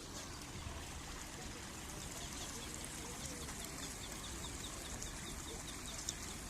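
A bird calling in a fast run of short, high chirps, about four or five a second, lasting about three seconds, over a steady outdoor hiss.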